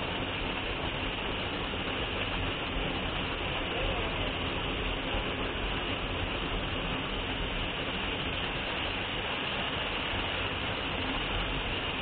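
Small waterfall pouring onto rock and into a pool close by: a steady rushing of falling water.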